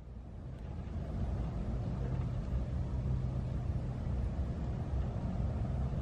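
A low, steady engine-like rumble that fades in over the first second and then holds.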